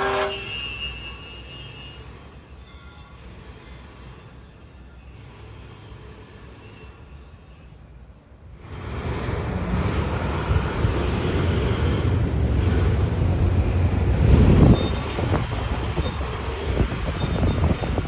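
A high-pitched, steady metallic screech from an Acura MDX's wheel while driving, which the uploader blames on a trapped pebble. It cuts off about eight seconds in, leaving a low rumble from the moving vehicle.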